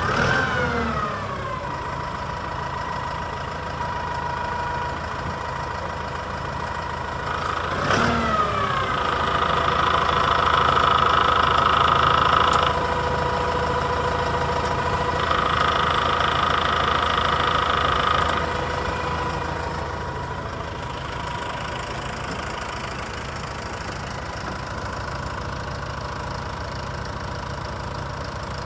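Kubota M108S tractor's four-cylinder diesel engine idling steadily. There is a sharp click with a falling pitch at the start and again about 8 s in. A louder whine joins from about 8 s to 13 s, cuts out, returns from about 15 s to 18 s, then the engine settles back to a plain idle.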